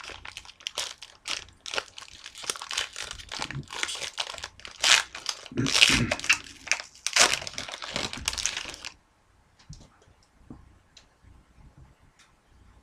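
Trading card pack wrapper being torn open and crinkled, with dense irregular crackling for about nine seconds. After that come a few faint light clicks as the cards are handled.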